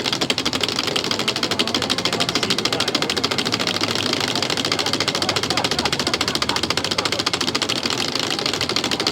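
A small mechanical device switched on and running with a fast, even clatter that holds steady.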